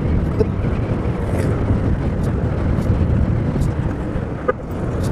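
Yamaha NMAX 2020 scooter riding steadily at about 60 km/h: its single-cylinder engine running under wind and road noise.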